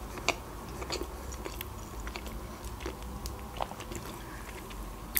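Close-miked chewing with the mouth closed, soft wet mouth clicks scattered through it and one sharper click at the very end.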